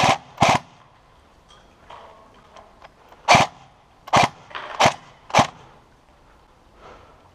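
Airsoft rifle firing six single shots, each a short sharp crack: two about half a second apart at the start, then four more roughly every half second from about three seconds in.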